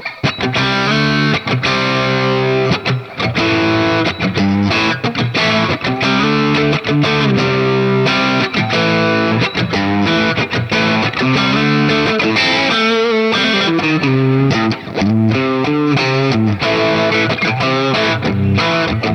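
MUSI Virgo Fusion T-style electric guitar played through an overdriven amp with effects: a continuous passage of chords and single-note riffs, with quick note runs about two thirds of the way through and again near the end.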